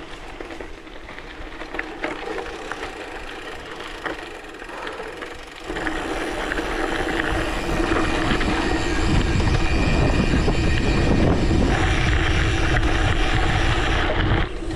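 Mountain bike rolling along a forest road: tyre noise and wind buffeting the microphone, both rising sharply to a loud, steady rumble about six seconds in as the bike picks up speed.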